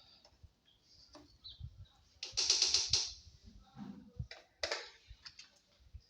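Tools and hardware being handled: scattered clicks and knocks, with a quick rattling burst lasting under a second about two seconds in and another sharp clatter near the end.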